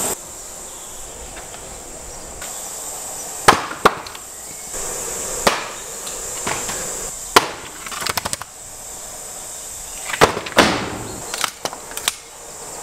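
A series of about ten sharp knocks and cracks at uneven intervals, some in quick clusters, over a steady faint hiss.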